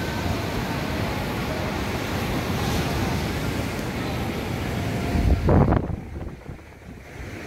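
Surf washing on a beach with wind on the microphone, a steady noise. About five seconds in a loud low bump hits the microphone, after which the sound drops and goes dull.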